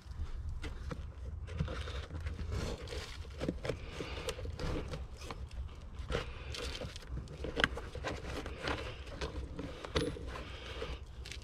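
Irregular metallic clinks and scrapes of hand tools and shock-absorber mounting hardware being worked, with one sharp clink about seven and a half seconds in, over a steady low hum.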